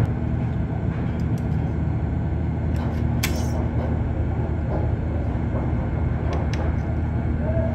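Steady low background rumble, with a few light metallic clicks and taps as thin stainless steel sheet is folded and levered with a flat steel bar. One sharper click comes about three seconds in.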